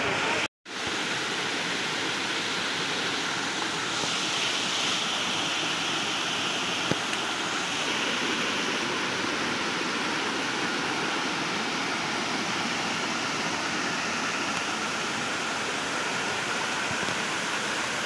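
Dhardariya waterfall's white water rushing over rocks at its top, a steady even rush of falling water. The sound cuts out for a moment about half a second in.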